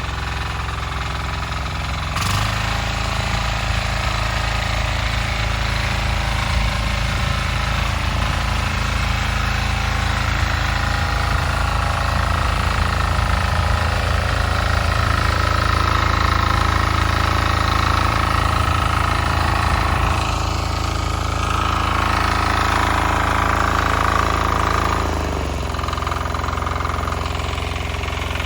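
Weima single-cylinder diesel walk-behind tractor running steadily while tilling. The engine note shifts about two seconds in and drops lower and quieter near the end.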